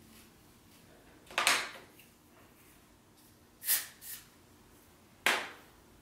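Hair-product spray bottle giving three short sprays about two seconds apart, the second followed at once by a smaller puff; each is a sharp hiss that fades within half a second.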